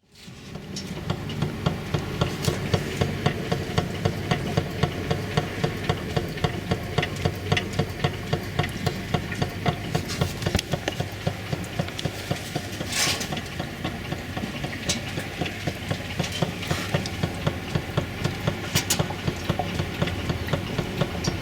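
Quick, regular clicking and rubbery creaking, about three a second, from newly fitted KONI Sport rear shock absorbers, over a steady engine running in the background. The owner traces the noise to the shocks' lower mounting bolts having been tightened with no load on the suspension.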